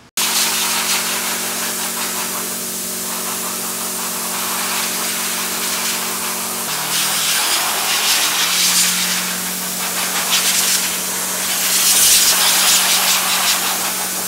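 Loud steady spray hiss from a nozzle washing and drying sealed glass jam jars after sterilisation, over a steady machine hum. The hum drops slightly in pitch about halfway through, and the hiss swells in short surges later on.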